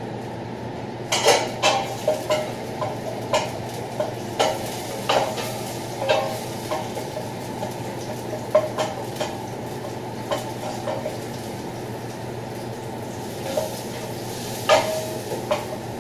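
Metal spoon stirring and clanking against a steel pot, in irregular strokes that come thickest in the first few seconds, with a loud one near the end, as garlic fries in hot oil. A steady low hum runs underneath.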